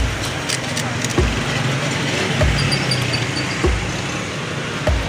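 Background music with a deep, evenly spaced beat about every second and a quarter, over steady street traffic noise.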